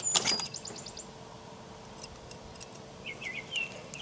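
A short sharp snap as a knife cuts through the trussing string holding the chicken to the rotisserie spit, followed by a faint steady hum; a small bird chirps a few quick falling notes near the end.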